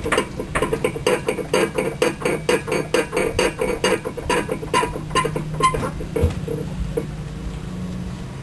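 Rapid metallic clinking and knocking from a Ford Mustang's suspension, about five knocks a second, stopping about six seconds in. A steady low hum runs underneath.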